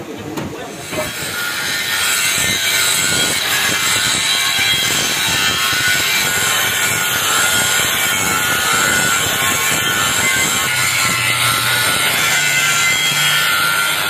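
Electric angle grinder grinding the face of a round steel plate: a loud, steady hissing grind that builds up over the first second or two.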